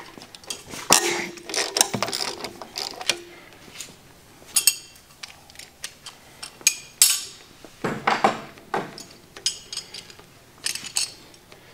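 Hand socket ratchet clicking, with irregular metal clinks, as cylinder head bolts are backed out of a V8 engine block.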